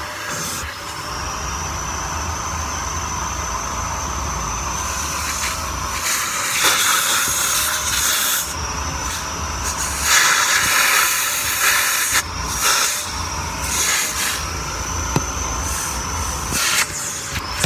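Vacuum cleaner running with a steady high whine over a rushing hiss of air, the rush growing louder for a second or two at a time, several times, as the airflow through the nozzle changes.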